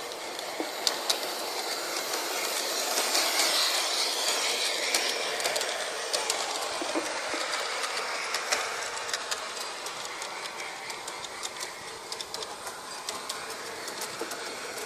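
Bachmann Big Hauler 4-6-0 large-scale model steam locomotive and coach running on garden track: a steady running noise with frequent small clicks from the wheels over the rails, loudest as it passes close about three to four seconds in, then fading as it moves away.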